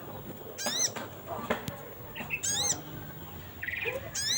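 Little spiderhunter (sogok ontong) giving its contact call: short, sharp, high notes repeated three times, about every two seconds, with a brief chattering note just before the last one.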